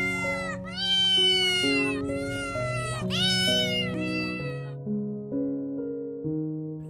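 A domestic cat meowing about six times in quick succession over background music, with only the music playing for the last two seconds.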